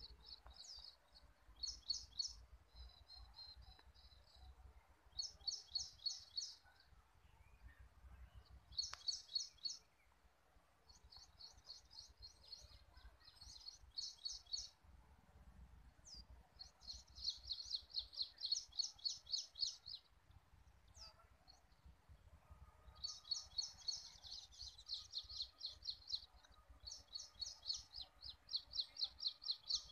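A bird singing in repeated phrases of rapid chirping notes, each phrase one to three seconds long, over a faint low rumble.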